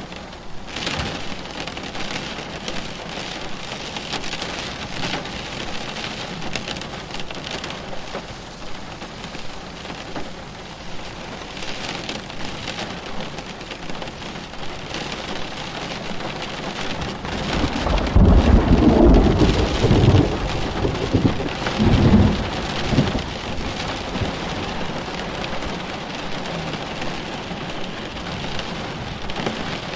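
Steady rain falling, with a long, low roll of thunder that builds a little past halfway, peaks for a few seconds and dies away.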